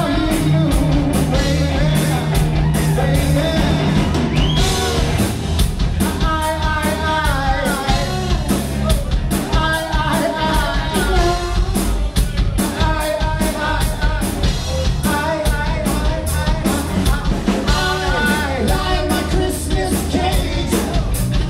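Live rock band playing loud: a male singer over electric guitar, bass guitar and a drum kit, with a steady driving beat.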